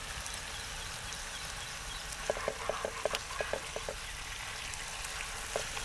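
Chicken pieces sizzling steadily in a thick masala in a cast-iron skillet. About two seconds in comes a quick run of light clicks as metal tongs turn the chicken against the pan.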